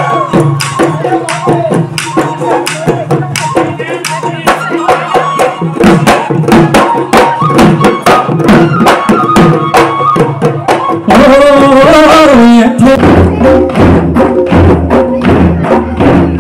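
Folk dance music: hand-played double-headed barrel drums beating a quick, steady rhythm, with a melody line over them. About eleven seconds in, the music turns abruptly louder, with a falling melodic line.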